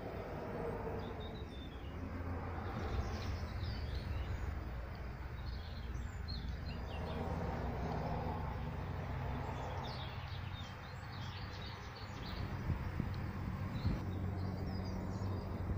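Small birds chirping and twittering over a steady low rumble, with a few light knocks near the end.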